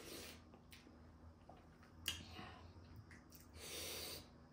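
Close-miked mouth sounds of someone eating rice and curry: soft chewing and wet lip smacks, with a sharper smack about two seconds in and a brief rushing sound near the end.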